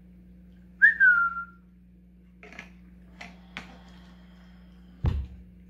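A short whistle that starts sharply and slides slightly down in pitch, lasting under a second. After it come a few faint clicks, and a dull low thump comes near the end.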